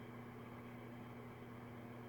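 Steady low hum with an even hiss underneath, unchanging, with no distinct sounds standing out.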